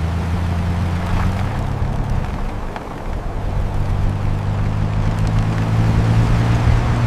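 Motor vehicle engine running steadily with a low hum, rising slightly in pitch and getting a little louder toward the end.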